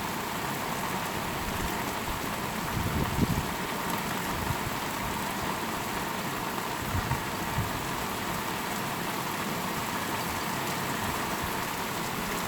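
Heavy rain falling steadily, an even hiss of rain on surfaces. A few low, dull thumps break through about three seconds in and again around seven seconds.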